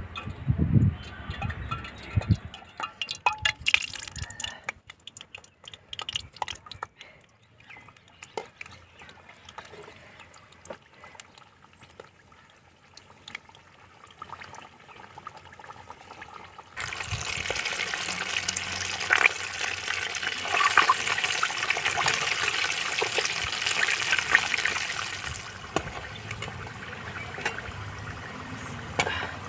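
Potato rolls deep-frying in hot oil in a wok: an even sizzling hiss that starts suddenly about halfway through, stays loud for several seconds and then settles quieter near the end. Before it there are a few soft knocks and clicks.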